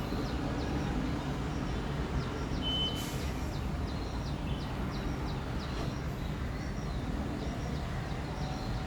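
Residential outdoor ambience: a steady low rumble of distant traffic with small birds chirping over it. A short high tone and a sharp click come about three seconds in.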